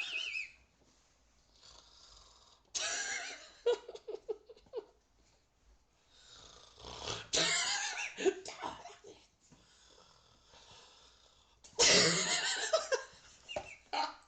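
A person snoring: about four long snores a few seconds apart, the loudest near the end.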